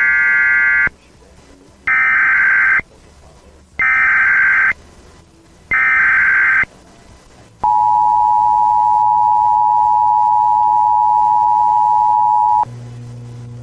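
Emergency Alert System alert tones: four short bursts of SAME header data, each about a second long with a second's gap between them, then the two-tone attention signal (853 and 960 Hz) held steady for about five seconds. A low hum starts near the end.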